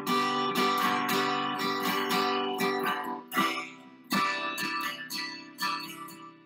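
Acoustic guitar music: strummed chords, each ringing out and fading before the next strike.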